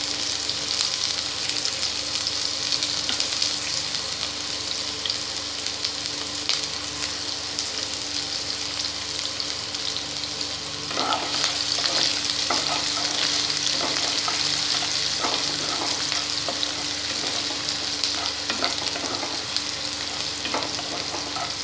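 Freshly added chopped onions sizzling in hot oil in a kadai, a steady hiss as they begin to fry. From about halfway through, a metal spatula scrapes and clicks against the pan as the onions are stirred.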